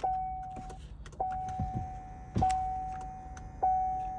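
A 2017 Chevy Sonic's dashboard warning chime dinging four times, evenly about once every 1.2 seconds, each ding fading away, with the ignition switched on and the engine not starting.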